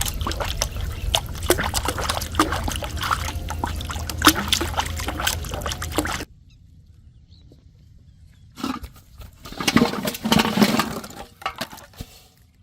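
Water splashing and slapping, dense and loud, with a low rumble underneath. It cuts off abruptly about six seconds in, and a second, shorter stretch of splashing follows about two seconds later.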